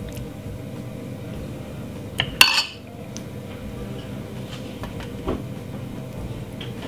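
A metal spoon set down in a glass bowl: two quick clinks about two seconds in, the second loud and ringing briefly. A softer knock follows later, over a steady background hum.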